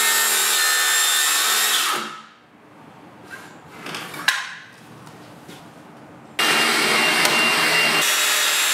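Circular saw cutting through plywood. It runs loud and steady, winds down about two seconds in, and leaves a few seconds of low noise with a couple of light knocks. Near the end it starts again abruptly and carries on cutting.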